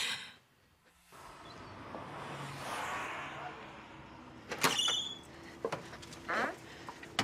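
Shop door being opened: after a soft swelling whoosh, a sharp clack with a brief high ring about four and a half seconds in, then a few lighter knocks.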